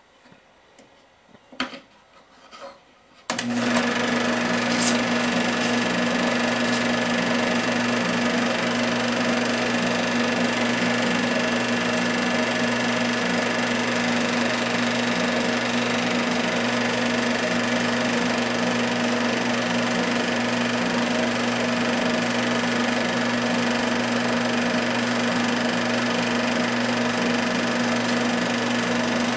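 Movie projector running: a few clicks, then about three seconds in its motor and film mechanism start abruptly and keep up a steady mechanical whir over a low hum.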